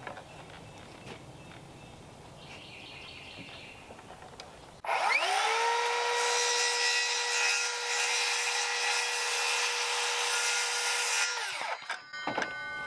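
Cordless circular saw starting up about five seconds in and cutting along a wooden board for about seven seconds, its motor pitch rising quickly to a steady whine, then spinning down. A few light clicks of handling before and after the cut.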